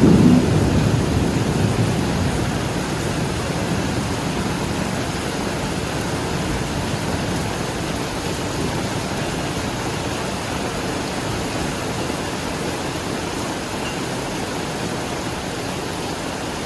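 Heavy rain falling steadily, with the end of a thunder rumble dying away in the first couple of seconds.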